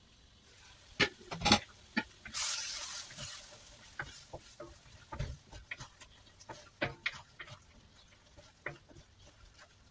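Glass wok lid knocking and lifted off about a second in, a short burst of sizzling, then a wooden spatula scraping and stirring potatoes in a thick tomato sauce in the wok, with many small irregular knocks against the pan.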